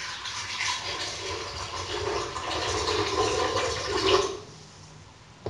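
Water poured in a steady stream into a plastic blender jar, splashing as it fills; the pour stops about four seconds in.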